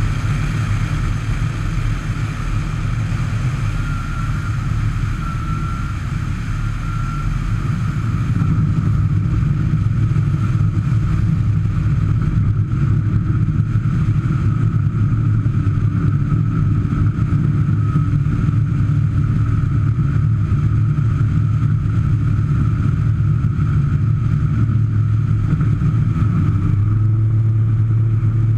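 Sky Arrow's Rotax 912 flat-four engine and pusher propeller running steadily through a landing roll and lift-off, a low engine drone. It gets louder about eight seconds in and rises in pitch near the end as power comes up for the climb away.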